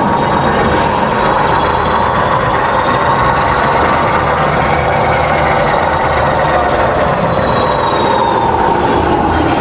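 Steady, loud mechanical rumble and hum, with a faint high whine that slowly rises and then falls away.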